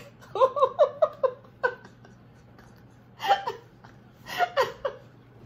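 Women laughing: a quick run of laughs in the first second and a half, then two shorter bursts of laughter later.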